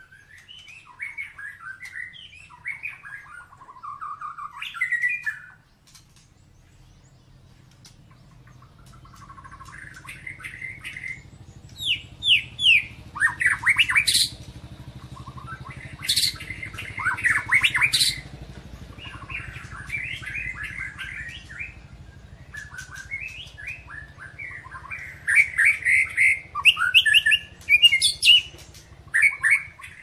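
White-rumped shama (murai batu) singing a full, energetic song of rapid sliding whistles and sharp chattering notes. It sings in bursts with a pause a few seconds in, and the loudest, sharpest notes come in the middle and near the end.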